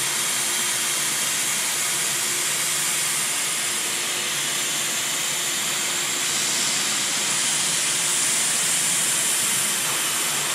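Steady hiss of a hot-gas plastic welding gun blowing ultra zero air in place of nitrogen, with a faint steady hum underneath.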